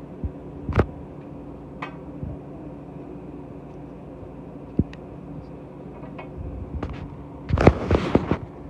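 Handling noise: a few single sharp clicks, then near the end a short burst of loud clicking and clatter, over a steady low hum.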